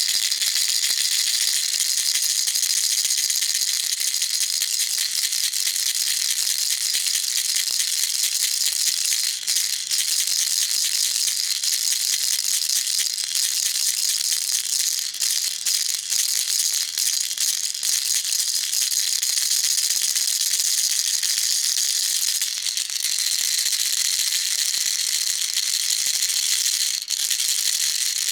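Baby rattle shaken continuously: a dense, steady, bright rattling with a few brief dips.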